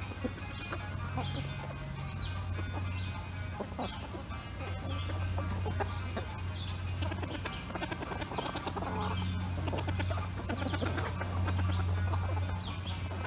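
A flock of chickens clucking as they forage, with short irregular calls over a steady low hum.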